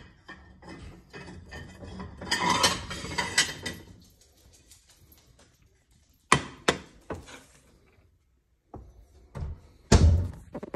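Kitchen handling noises as a plate is fetched: a clatter of dishes and utensils, then a few sharp knocks and a loud thump about ten seconds in as things are set down on the counter.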